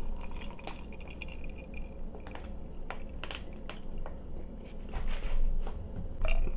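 A person drinking from a glass, gulping and swallowing, with a few faint sharp clicks around the middle.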